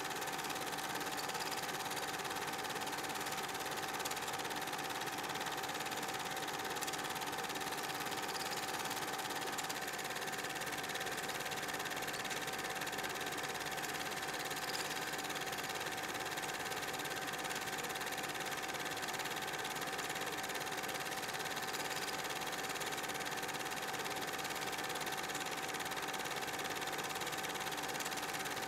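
Super 8 film projector running: a steady mechanical whir with one constant tone, unchanged through the picture cuts.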